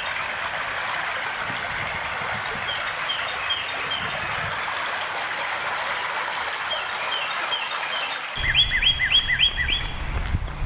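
A stream babbling steadily, with a small bird repeating short series of quick chirps every few seconds. About eight seconds in, a louder run of about five chirps comes, and a low rumble sets in at the same moment.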